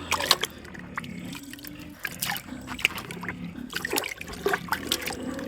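Pigs eating wet rice-and-water feed from a trough: irregular wet slurps, splashes and sharp smacks of the mouths in the liquid feed.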